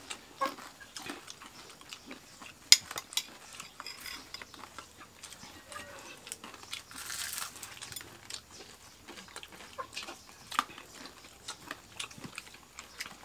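Sounds of a meal: scattered light clinks and taps of a spoon against a ceramic bowl and plates, with one sharper click about three seconds in and a brief rustle about seven seconds in.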